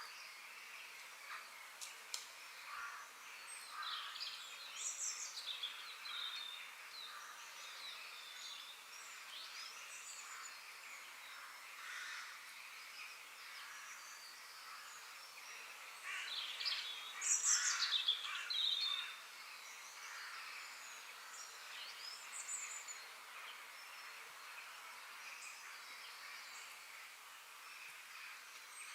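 Forest ambience: several birds chirping and calling over a steady faint hiss, with a louder flurry of calls just past the middle.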